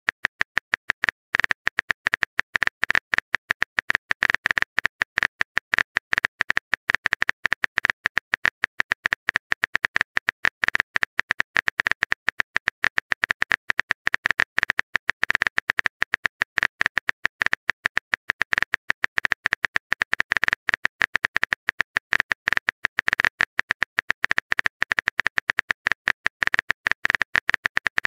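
Simulated phone keyboard typing sound: a fast, steady run of short clicks, one for each character as a long text message is typed out.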